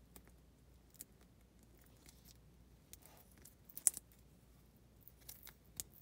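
Faint hand-handling of a flexible LED strip as its adhesive tape is peeled back from the circuit board: scattered small clicks and light rustles, the sharpest click about four seconds in.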